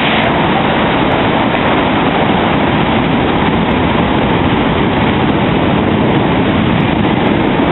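Steady, loud rumble of a moving car-carrying shuttle train, heard from inside one of its enclosed wagons.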